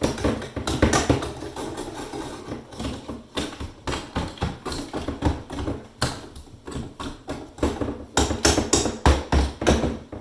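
A metal breaker bar knocking again and again at ice packed into a Samsung refrigerator's ice maker, chipping out the built-up ice that has clogged it. The sound is a fast, irregular series of sharp hits.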